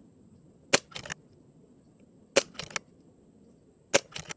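Three shots from a Brocock Sniper XR Sahara PCP air rifle firing .22 pellets, about a second and a half apart. Each is a sharp crack followed by two or three quieter clicks.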